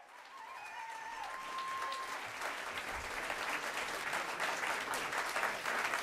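Audience applause, fading in and building up, with many individual claps.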